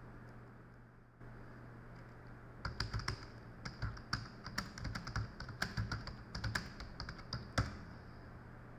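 Typing on a computer keyboard: a quick run of key clicks starting about two and a half seconds in. It ends with one louder key press near the end as the chat message is sent.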